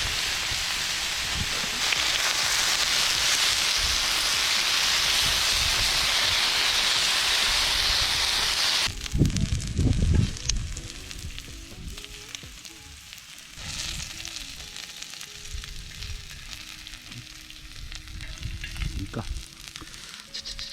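Food sizzling loudly on a hot grill or pan, a steady hiss that cuts off about nine seconds in. After that only faint steady tones of background music and a few low knocks remain.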